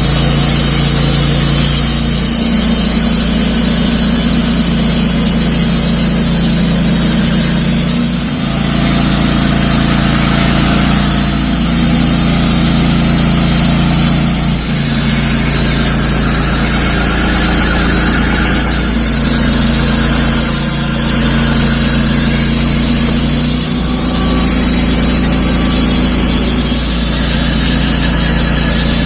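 Wood-Mizer LT15 portable bandsaw mill running, its engine holding a steady speed while the band blade saws oak into posts, with a few brief dips in the engine note.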